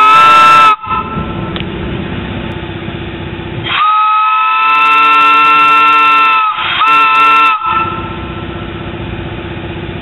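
Brass three-chime Buckeye 2.5-inch steam whistle blown on compressed air, sounding its steady chord. A blast cuts off under a second in, then comes a long blast of nearly three seconds and, after a brief gap, a short one of under a second. A steady low mechanical hum runs underneath between the blasts.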